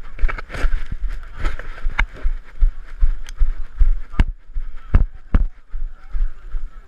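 Running footfalls jolting a body-mounted action camera on a muddy trail, a steady thudding about three times a second, with a few sharp knocks against the camera housing.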